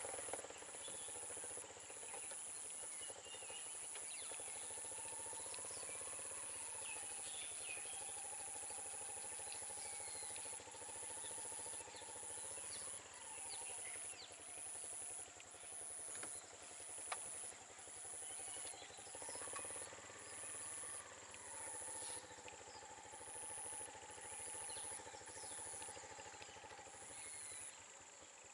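Faint outdoor ambience: insects shrilling in a high, regular on-and-off pulse, with scattered bird chirps. Under it a vehicle engine runs faintly, its pitch rising and falling a few times.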